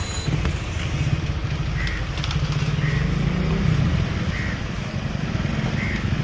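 A motor vehicle engine running nearby, a steady low rumble, with four short, faint high chirps over it.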